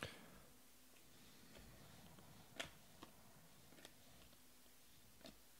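Near silence broken by a few faint, sharp clicks as glossy Panini Prizm baseball cards are flipped through by hand, one card slapping or sliding off the stack at a time. The loudest click comes about two and a half seconds in.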